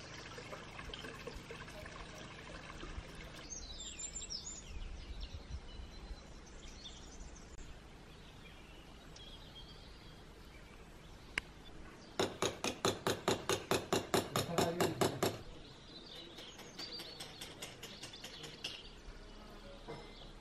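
Small birds chirping, with a fountain spout trickling into a stone trough at the start. About halfway through, the loudest thing comes: a burst of rapid, evenly spaced pulses, about four or five a second, lasting some three seconds.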